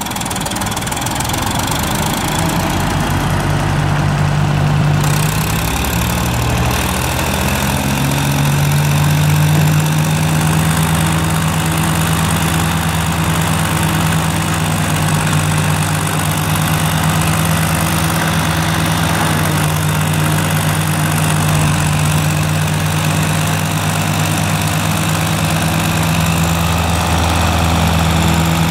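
Fordson Dexta's three-cylinder engine running steadily under load as it drives a bale chopper through the PTO, with the chopper shredding straw over the engine note. The engine speed rises a few seconds in and then holds steady.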